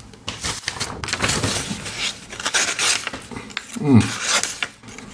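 Pocket knife blade rasping in a quick run of scraping strokes, followed by a short falling hum from a voice.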